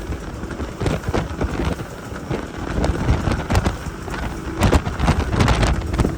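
Wind buffeting the microphone over the rush of a motorboat running flat out at about 56 mph, with irregular gusty crackles throughout.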